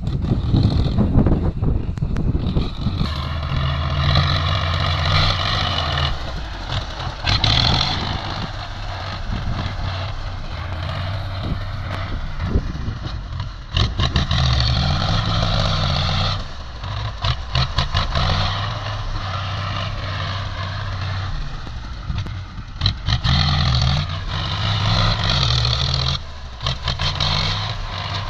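Heavy diesel earthmoving machinery working: big engines running and pulling harder in stretches, with a higher-pitched whine over them and scattered metallic clanks.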